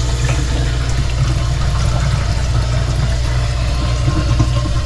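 Water from the sink draining down a newly installed white plastic 1¼-inch P-trap and tailpiece extension, a steady rush of running water heard from under the vanity. It is the first water through the new drain plumbing, run to test it for leaks.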